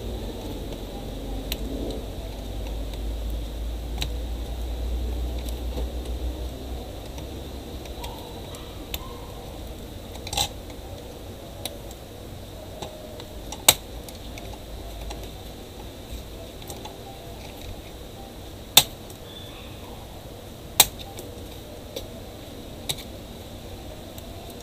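Sharp scattered clicks and light clatter of a laptop's metal screen hinge being fitted by hand and with pliers. The loudest clicks fall in the second half, over a low rumble that fades away about midway.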